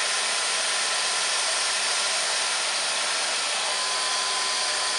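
Numatic Charles CVC370-2 wet-and-dry vacuum cleaner's 1000-watt motor running steadily under suction. A faint steady whistle joins in about three and a half seconds in.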